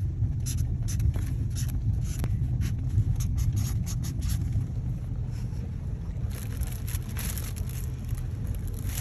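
Steady low wind rumble on the microphone, with short scratchy ticks through the first half as a Sharpie marker writes on a paper gift bag.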